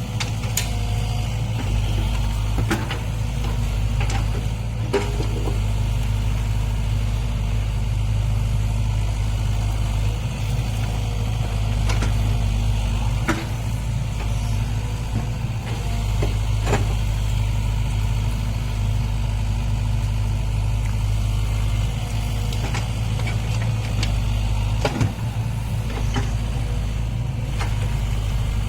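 Heavy construction machine's diesel engine running steadily with a low drone, with scattered sharp knocks a few seconds apart.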